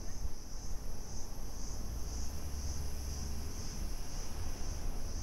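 Insects chirring in a steady, high, unbroken drone with a slight pulsing, over a low rumble.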